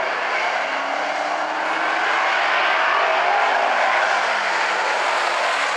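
A pack of street stock race cars running together on the oval, a steady loud engine din with the engine pitch slowly rising as the field gathers speed.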